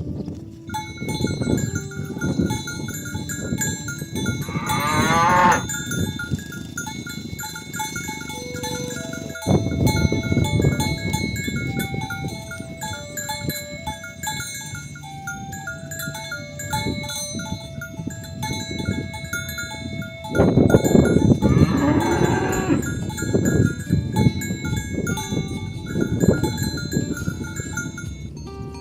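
Herd of oxen on the move with cowbells clanking and ringing steadily, and two long moos, one about five seconds in and one about twenty-one seconds in.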